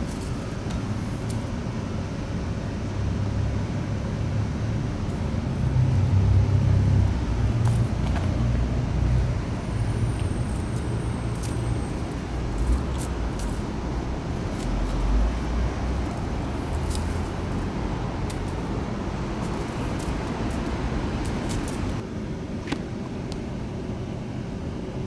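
Road traffic noise: a steady low rumble that swells louder about five seconds in and again a little before the middle.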